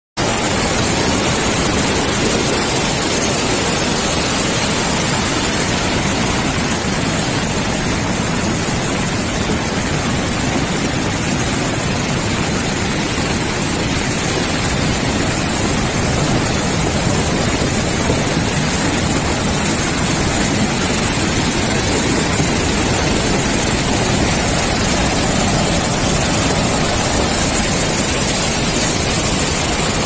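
A flooded river in spate rushing past, a loud, steady hiss and rumble of fast, churning muddy water.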